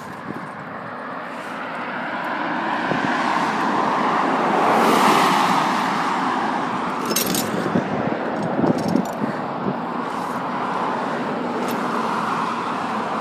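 Road traffic passing close by on a busy street. One vehicle's noise swells up and fades about five seconds in, over a steady traffic hum, with a few light clicks a couple of seconds later.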